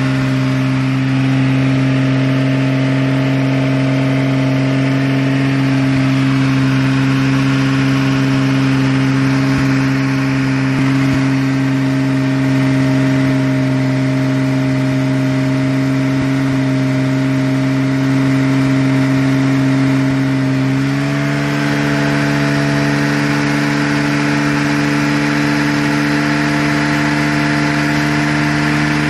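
Porsche 996 Turbo's twin-turbo flat-six held at steady raised revs, around 3000 rpm, to bleed air out of the cooling system while coolant is drawn in. Its pitch steps up slightly about twenty seconds in.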